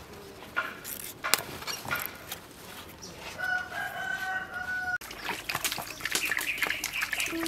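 A rooster crowing once, a held call of about a second and a half starting about three and a half seconds in, after a few sharp knocks. From about five seconds, water sloshing and splashing in an aluminium basin as raw cow leg meat is washed by hand.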